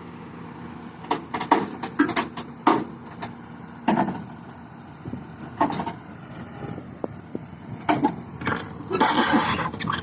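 Hyundai 210 excavator's diesel engine running steadily, with sharp metallic clanks and knocks at irregular intervals and a longer scraping rush near the end.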